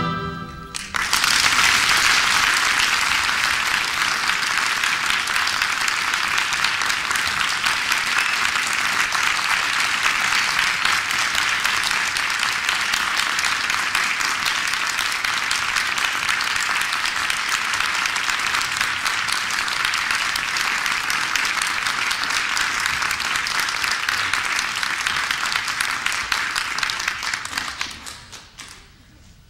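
Theatre audience applauding steadily. The applause starts right as the music ends and dies away near the end.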